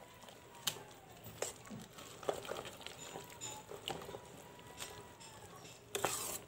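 A spoon stirring thick dosa batter with onions and maida in a steel bowl: soft squelching with irregular clicks of the spoon against the bowl, and a brief louder rush of noise near the end.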